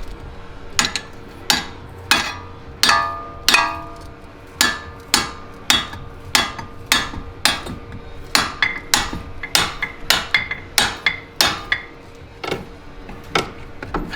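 Hammer blows on the metal front suspension arms of an Audi B5 S4, about two a second, each with a short metallic ring, tapping the arms out. The blows thin out near the end.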